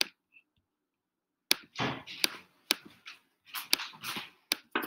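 Computer mouse clicks and keyboard keystrokes: a quick, irregular run of sharp clicks and softer key taps starting about a second and a half in, as an equation is deleted and retyped in a graphing calculator.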